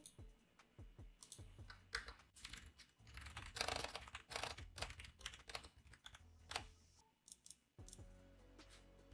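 Typing on a computer keyboard: irregular runs of key clicks, thickest in the middle, with a short pause about seven seconds in.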